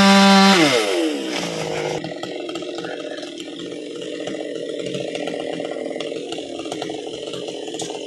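Chainsaw at full throttle cutting into a dry teak trunk. About half a second in the throttle is released and the revs fall away, and the saw settles to a steady, quieter idle.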